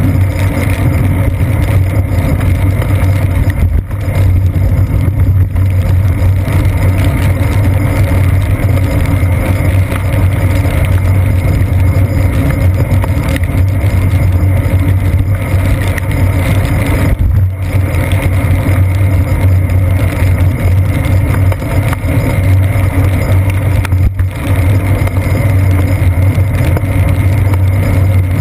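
Continuous loud low rumble of riding noise, wind and road vibration, picked up by a GoPro Hero 2 mounted on a bicycle's seat post while riding over wet pavement in the rain, with a few brief dips.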